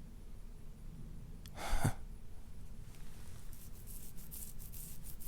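A man's heavy, laboured breathing close to the microphone, acted as a wounded man: one sharp gasping breath a little under two seconds in, then fainter ragged breath noises.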